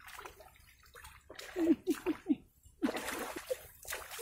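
Muddy water splashing and sloshing as a person wades and gropes with bare hands in a shallow flooded ditch. About halfway through come several short, low sounds falling in pitch, likely a voice.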